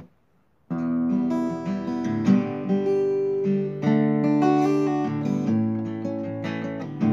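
Seagull acoustic guitar strummed, with a Hohner harmonica playing held notes over it: a folk instrumental intro that begins abruptly after a moment of silence.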